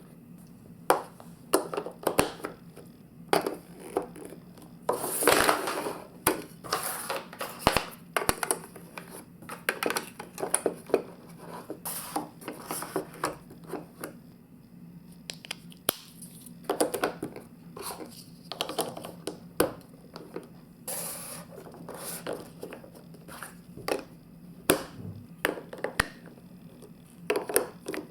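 Hard plastic building blocks and magnet pieces clicking, knocking and scraping against each other as they are handled and fitted together, with a few longer scrapes and a low steady hum under it.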